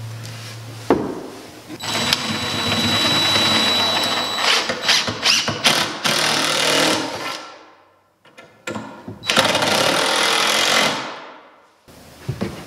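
Cordless power driver driving screws into a wooden stair-rail post, in two runs: a long one of about five seconds and a shorter one of under two seconds, with a steady high whine over a rattling hammering, each run fading out as it stops. A few knocks of handling near the end.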